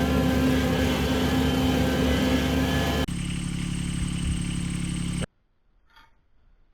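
An engine running steadily, cut about three seconds in to a different steady engine sound that stops abruptly a little past five seconds, followed by near silence with one faint tick.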